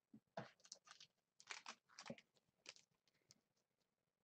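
Faint rustling and crinkling of trading cards and packaging being handled: a handful of short, soft rustles.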